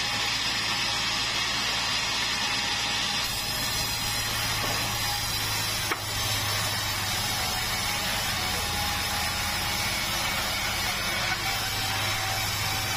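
Sawmill band saw running steadily, a low hum with a hiss over it, as it saws a long keruing board. A single sharp click about six seconds in.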